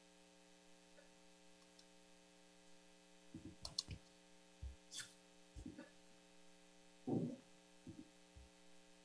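Faint steady electrical hum on a video-call audio line, with a scattering of brief, faint clicks and knocks from about three seconds in to near the end.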